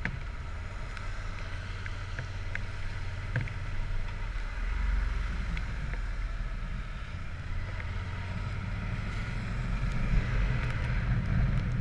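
Yamaha Super Ténéré parallel-twin motorcycle riding on a wet road, its low engine rumble under wind noise on the microphone, with a few light ticks.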